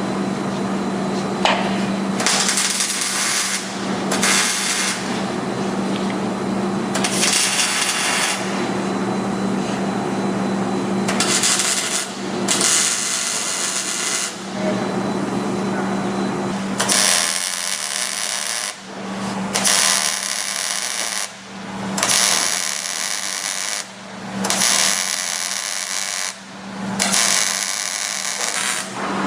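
MIG welder tack-welding a steel subframe connector and torque box plates: about ten separate bursts of crackling arc, each a second or two long, the later ones longer. A steady low hum runs underneath.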